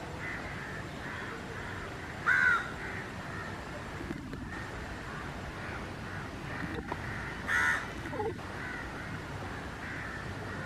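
A crow cawing twice, two loud caws about five seconds apart, over faint chirping and steady background noise.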